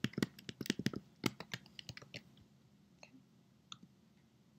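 Typing on a computer keyboard: a quick run of keystrokes in the first second and a half, then a few separate key or mouse clicks.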